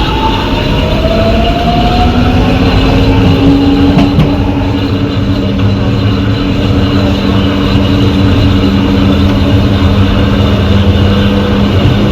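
São Paulo Metro train's traction motors and inverter accelerating: a whine rises in pitch over the first few seconds, then holds steady over a loud low rumble. Under it runs a distinctive growl that comes from the reduction gearbox.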